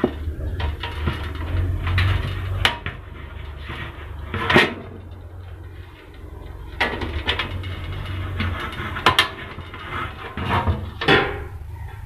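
Hands fitting wires and parts to a sheet-metal battery charger panel and cabinet: a handful of sharp clicks and knocks, with rustling handling noise, over a low steady hum.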